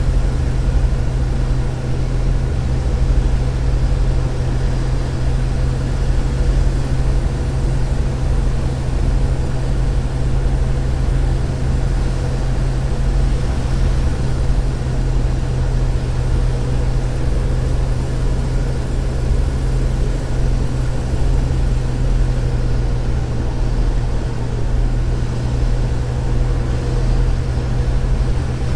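1964 Chevy Nova's engine idling steadily with the air-conditioning compressor engaged; the owner finds the idle a little low with the AC on.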